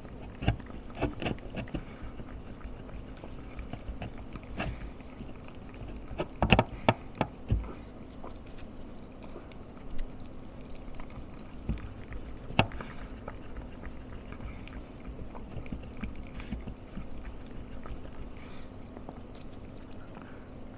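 Pomeranian eating from a plastic bowl: irregular crunches and sharp clicks of chewing, densest in the first eight seconds, then only a few scattered clicks. A faint steady hum runs underneath.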